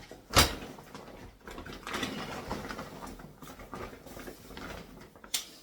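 Kitchen items being handled and put away: rustling and light clattering, with a sharp knock about half a second in and another near the end.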